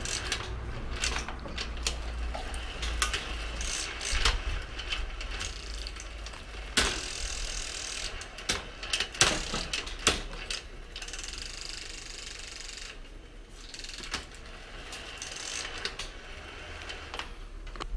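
Rear wheel with a Torpedo Duomatic two-speed hub being turned on the stand, its freewheel pawls and mechanism clicking irregularly with scattered knocks. The hub apparently keeps catching and jamming.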